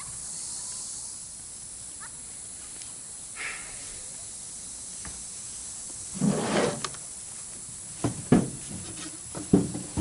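Several knocks and clunks over the last two seconds, from materials being handled in a pickup truck bed, over a steady outdoor hiss. A brief louder noise comes about six seconds in.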